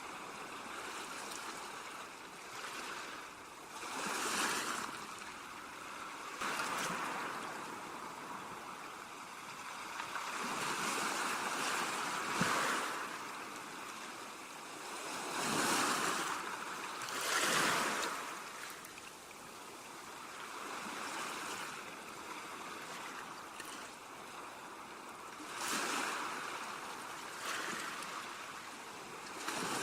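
Ocean waves breaking against shoreline rocks: a steady wash of surf with several waves swelling and crashing a few seconds apart, the loudest about halfway through.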